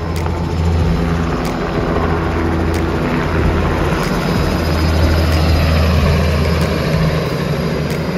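Small helicopter flying low past, its rotor and engine a steady, loud low drone that grows from about a second in and eases off near the end.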